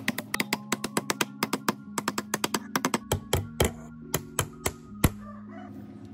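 Small hammer tapping the metal end cover of a water pump motor down onto the motor housing: a quick run of about two dozen sharp metal taps, the loudest one near the end, then it stops about five seconds in.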